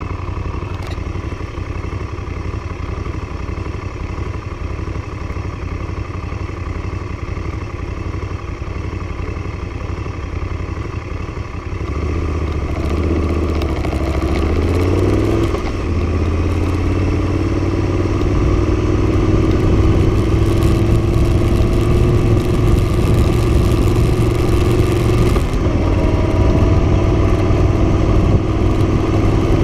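Moto Guzzi Stelvio's transverse V-twin engine running while the motorcycle is ridden along. It picks up about twelve seconds in, the note rising and growing louder, then pulls steadily, with a short shift in the note near the end.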